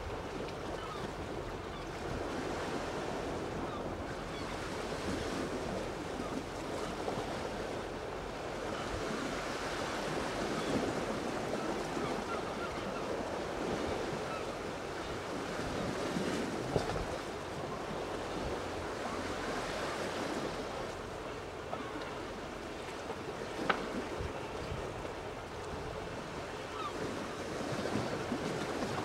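Steady wash of sea water with wind buffeting the microphone, and two sharp clicks in the second half.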